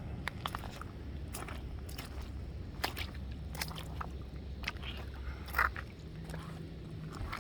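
Footsteps crunching and scraping over rocks, with scattered sharp clicks and one louder scrape a little past five seconds, over a steady low rumble.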